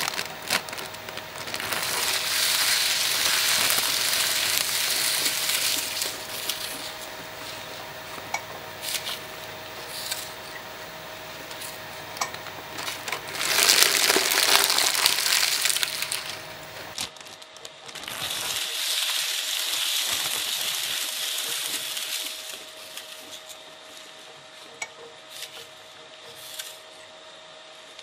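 Twin-shaft shredder crushing a plastic bag of peanut puff snacks: crinkling packaging and crunching puffs in three loud spells, with a steady hum under the first half.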